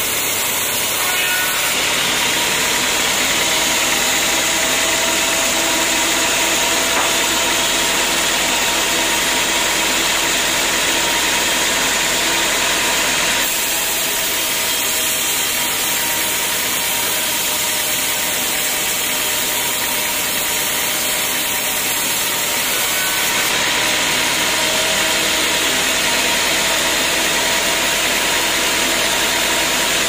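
Vertical band sawmill running steadily, its blade cutting lengthwise through an old teak log. The noise shifts in tone a few times as the cut goes on.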